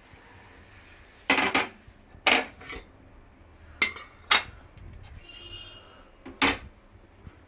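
Metal kitchen utensils knocking and clinking against each other, about seven sharp knocks spread unevenly over several seconds.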